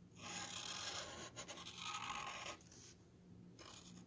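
Felt-tip Sharpie marker scratching across a wooden spoon as a face is drawn: a run of strokes for about two and a half seconds, then fainter strokes.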